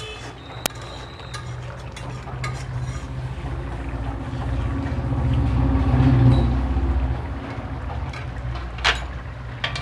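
Metal spatula stirring and scraping a thick, bubbling curry in a metal kadai, with a steady low rumble that swells around the middle. There are a couple of sharp knocks of the spatula on the pan, one near the start and one near the end.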